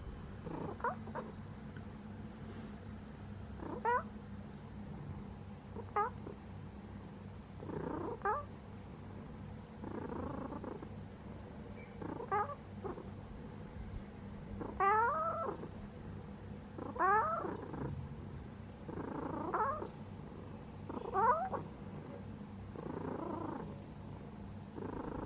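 Sleeping cat snoring: a squeaky, whistling breath about every two seconds, some breaths softer and breathier.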